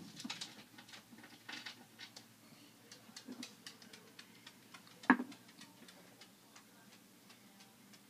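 Faint small clicks and ticks at irregular spacing, with one louder click about five seconds in.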